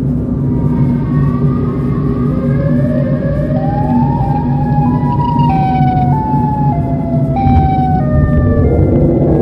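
Steady low drone of a car driving on a highway, with a siren-like wailing tone over it. The tone glides slowly upward in pitch, then jumps between held notes and steps down near the end.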